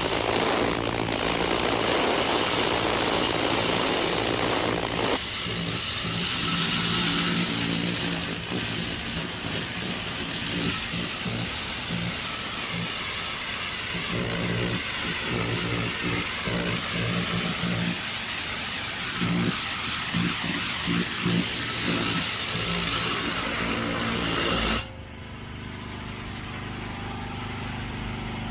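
Hot-water pressure washer running, its engine drone under the steady hiss of the high-pressure spray. About 25 seconds in the spray cuts off suddenly and the machine keeps running, quieter.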